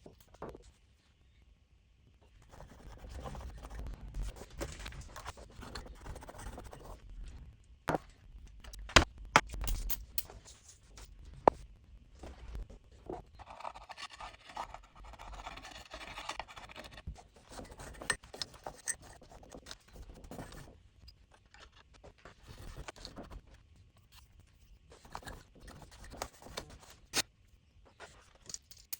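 Old glue softened with carburettor cleaner being scraped and rubbed off inside the amplifier, in several stretches of scratchy scraping with scattered sharp clicks of the tool.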